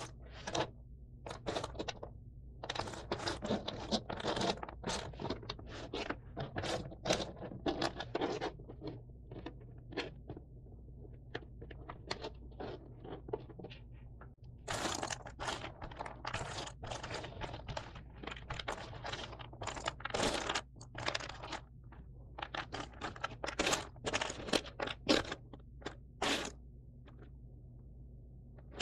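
Cardboard jigsaw puzzle pieces being handled and slid across a table: irregular clicks and scrapes that come in busy flurries, with sparser stretches between.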